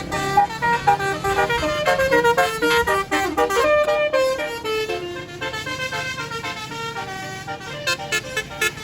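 A tour bus's multi-trumpet telolet horn (basuri type) playing a tune, with clear notes following quickly one after another. Near the end a rhythmic pulsing beat comes in.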